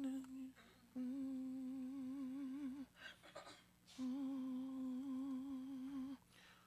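A person humming two long held notes on the same pitch, each about two seconds, with a gentle vibrato and soft whispering in between.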